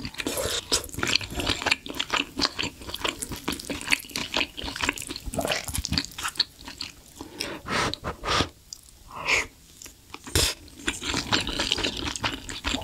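Close-miked eating sounds: slurping spicy beef-rib soup broth from a ladle and chewing, with many wet mouth clicks and smacks. A sharp knock about ten and a half seconds in.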